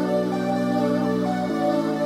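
Background music: soft sustained synth chords, the chord changing about a second and a half in.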